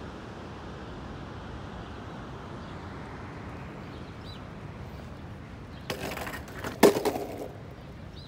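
Steady wind rush, then two sharp clacks about six and seven seconds in, the second much the loudest with a short rattle after it: a longboard deck and wheels hitting an asphalt path as the board is put down.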